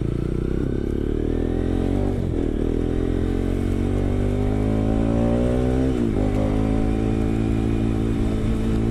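Kawasaki RS200 single-cylinder engine through an Akrapovic M1 exhaust, pulling under gentle acceleration. Its pitch climbs steadily, drops sharply about two seconds in and again about six seconds in as it shifts up a gear, then climbs again.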